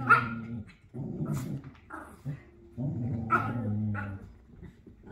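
Small dogs growling at each other in play. A short bark comes right at the start and another about three seconds in.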